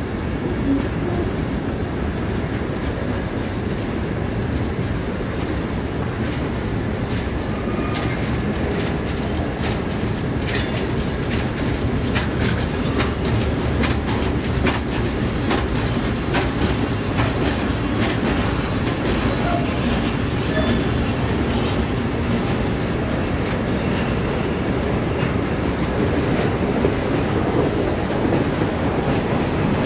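Freight cars of a long mixed train rolling past close by: a steady rumble of steel wheels on rail, with sharp wheel clicks and clatter that come thickest in the middle of the passage. Loaded stone hoppers pass first, then covered hoppers.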